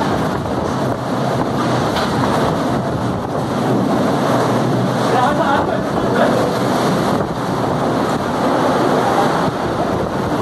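Torrential rain driven by strong gusting wind, a loud steady rush of noise, with wind buffeting the microphone.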